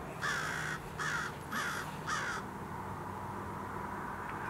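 A bird giving four harsh, caw-like calls in quick series, about two a second, then stopping about two and a half seconds in.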